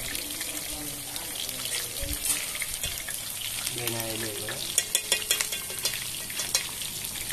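Pieces of carp sizzling in hot oil in an electric frying pan. Metal utensils click and scrape against the pan as the pieces are turned, most often in the second half.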